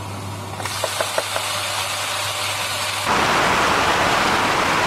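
Blended chili paste sizzling as it fries with minced garlic in a hot wok, stirred with a wooden spatula, with a few light taps about a second in. The sizzling gets louder about three seconds in.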